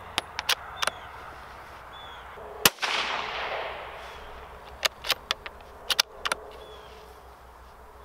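A Rossi RB17 .17 HMR bolt-action rifle fires once, about two and a half seconds in; the sharp report is followed by an echo that lingers for over a second. Before and after the shot, the bolt is worked with a quick series of sharp metallic clicks.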